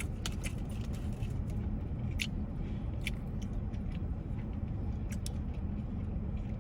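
Steady low rumble of a car interior, with a few faint sharp clicks scattered through it.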